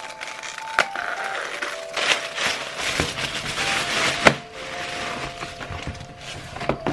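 Plastic poly mailer bag rustling and crinkling as it is torn open and a bubble-wrapped box is pulled out, with a few sharp clicks and knocks; the rustling is heaviest in the middle and eases off near the end. Soft background music with held notes underneath.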